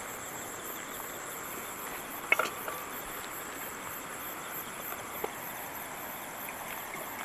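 Night insects, crickets, chirring steadily in a high, evenly pulsing drone, with a short sharp sound about two seconds in.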